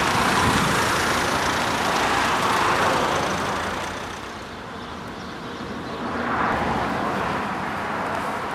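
Car moving close by on a dirt lot: engine and tyre noise that eases off about halfway through and swells again a couple of seconds later.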